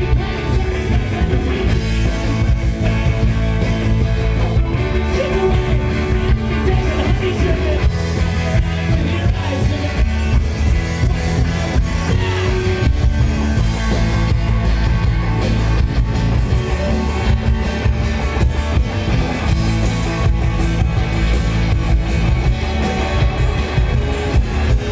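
Indie rock band playing live: electric guitars, bass and drum kit.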